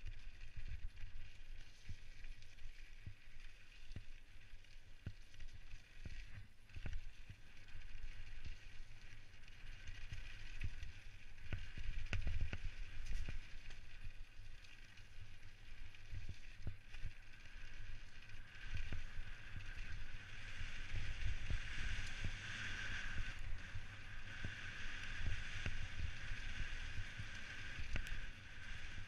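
Specialized Stumpjumper mountain bike descending a dirt forest trail, heard from a helmet-mounted camera: a constant low rumble of the tyres over the bumpy ground, with frequent knocks and rattles from the bike. A steady higher hiss of wind and rolling noise runs over it and grows louder about two-thirds of the way through.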